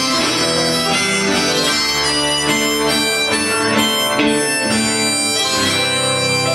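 Live rock band music: a harmonica playing long held notes over strummed acoustic guitar and the band.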